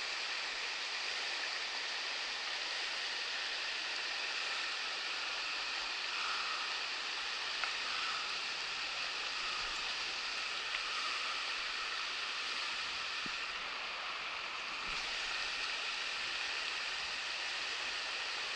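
Steady rush of a river flowing over shallow, rocky riffles.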